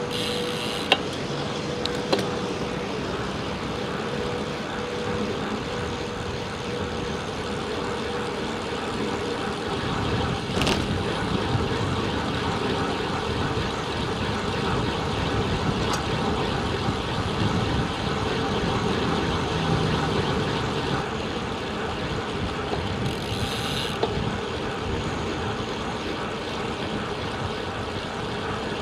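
Steady rush of wind on the camera's microphone, with road noise from a road bike riding at speed. The low rumble grows about ten seconds in as the pace rises, and there is a sharp click about a second in.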